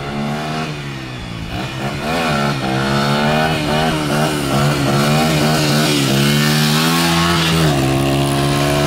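Dirt bike engine revving, its pitch rising and falling again and again as the bike rides up close, louder from about two seconds in, then holding a steadier note near the end.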